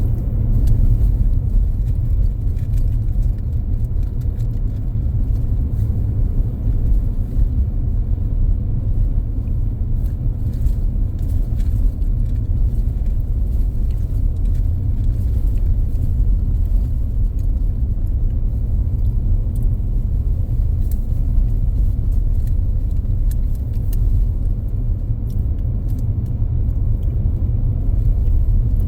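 Steady low rumble, with a few faint clicks scattered through it.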